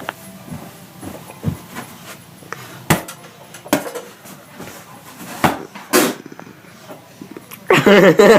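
Scattered light knocks and clicks, then a loud burst of a person's voice near the end.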